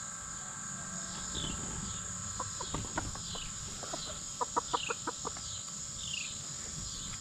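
Chickens clucking softly while feeding, with a quick run of short clucks in the middle. A steady high insect trill, likely crickets, runs underneath.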